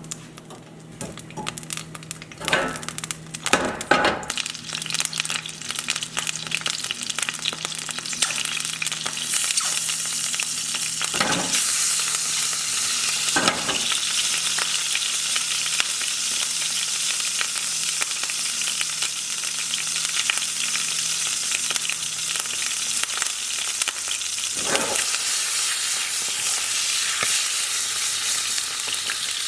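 Cherry tomatoes sizzling in hot olive oil in a pan as they blister, with a few sharp knocks early on. The sizzle builds to a steady dense hiss after about ten seconds.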